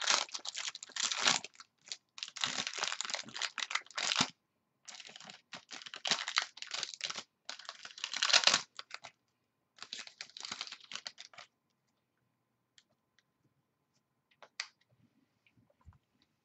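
Clear plastic wrapping being torn off a box of trading cards and crumpled by hand, in crackly bursts for about the first eleven seconds. After that there are only a few faint clicks.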